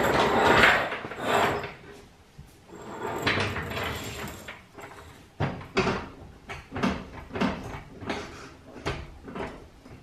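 Floor jack rolled across a concrete floor, rattling loudly at first, then pumped up, giving a run of knocks about twice a second.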